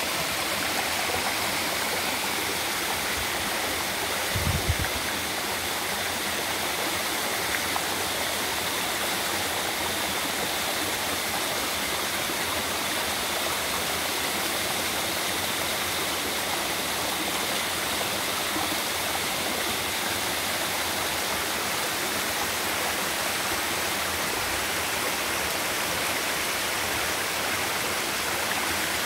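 Waterfall on a mountain stream: a steady, even rush of falling water. A brief low thump comes about four and a half seconds in.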